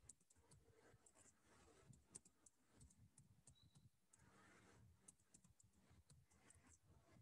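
Faint, irregular clicking of keys on a computer keyboard as text is typed.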